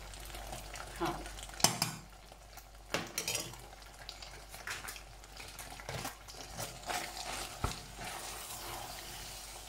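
Wooden spoon stirring pesto-coated pasta and grated cheese in a stainless steel pot, with scattered knocks and scrapes of the spoon against the pot.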